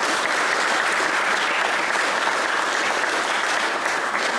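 Audience applauding, a steady, dense clapping.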